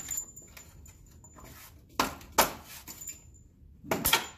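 Motorcycle grille being rocked and popped out of its mounts: a few sharp clacks, two close together about two seconds in and another near the end.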